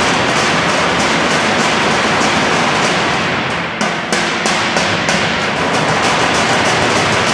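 A drumline playing drumsticks on upturned galvanized metal garbage cans in a fast, dense rhythm. The playing breaks off briefly a little before four seconds in, comes back with a few separate accented strikes, then fills in again.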